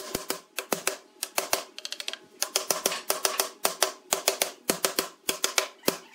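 Rapid light taps of a wooden mallet on wood, in uneven runs of several crisp strikes a second.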